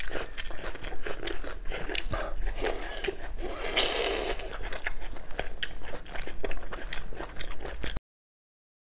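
Close-miked eating sounds: biting, tearing and chewing braised shank meat off the bone, with many quick wet clicks and crunchy bites. The sound cuts off abruptly near the end.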